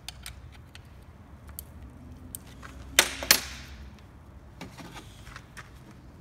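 Small metal clicks and rattles of a piston ring compressor being tightened around a piston with its key, with two louder sharp clicks about three seconds in.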